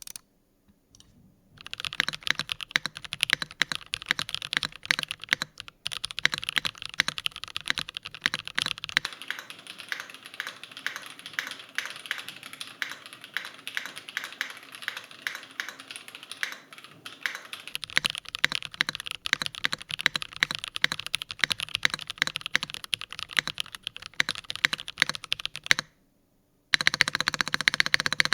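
Fast, continuous typing on an Akko ACR Top 75 top-mounted aluminium mechanical keyboard with KTT Strawberry linear switches lubed with dielectric grease. The keystrokes are a dense run of clicks that stop briefly near the end, then resume.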